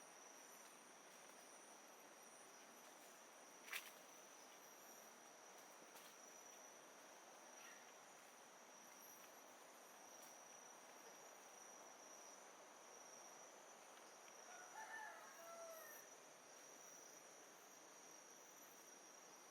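Faint tropical ambience: a steady high insect drone over a soft even hiss of distant water. A sharp click comes about four seconds in, and a distant rooster crows briefly about fifteen seconds in.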